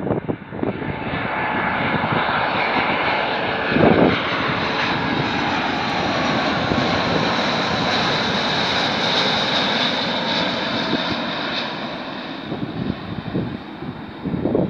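Airbus A330-200 twin-engine jet on its landing approach passing the listener: a steady jet-engine roar that builds to its loudest about eight to ten seconds in and then fades away. Wind buffets the microphone briefly about four seconds in.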